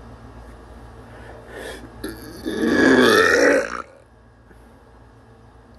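Short sniffs, then a loud, throaty vocal sound of under two seconds with a falling pitch.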